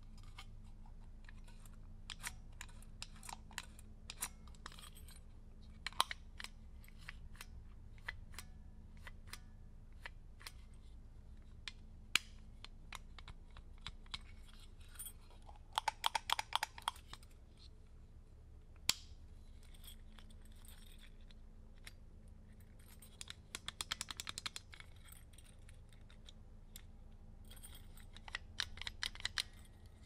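Airstream KT door lock mechanism being worked by hand: scattered metal clicks and clacks from the latch bolt, lever and spring, with the keys in the lock jingling. Two quick runs of rapid clicking come about halfway through and again a little later, over a steady low hum.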